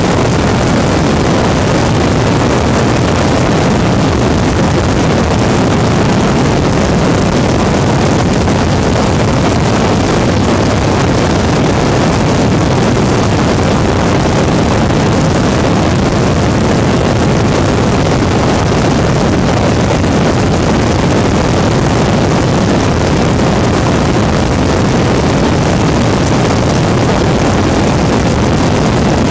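Weedhopper ultralight's two-stroke engine and propeller running steadily in cruise, heard from on board with heavy wind buffeting on the microphone.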